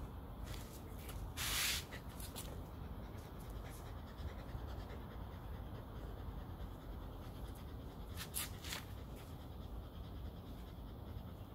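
Shetland sheepdog panting while its coat is brushed, with a few short swishing strokes through the fur; the loudest comes about a second and a half in.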